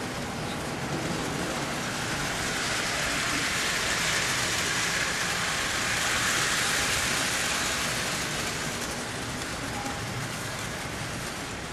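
O-gauge model steam locomotive and passenger cars running along the layout's track: a steady rushing rumble of wheels on rail that grows louder as the train passes close, about halfway through, then eases off.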